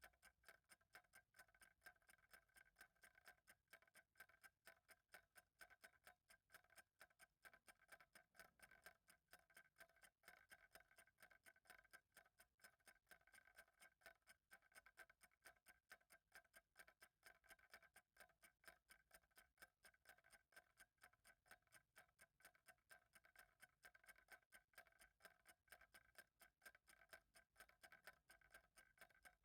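Faint, steady ticking of a clock.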